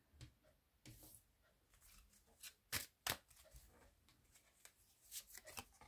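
Faint rustling and light clicks of tarot cards being handled, with two sharper taps about three seconds in.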